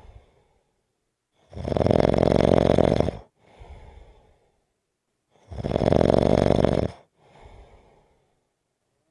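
Snoring: two long, loud snores about four seconds apart, each lasting about a second and a half and followed by a softer breath out.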